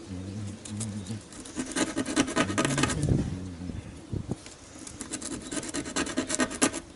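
A tiny wooden model-ship part being hand-sanded to take its corners off, in two spells of quick rasping strokes: one from about one and a half to three seconds in, the other from about five seconds in to near the end.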